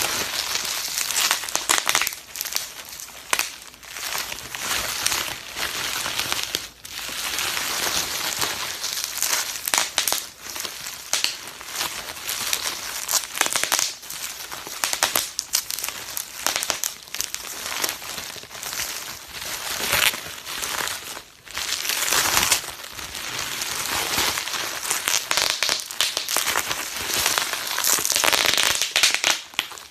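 Plastic bubble wrap being handled and popped: a dense, continuous crackle of many sharp little snaps over crinkling plastic, with a few short lulls.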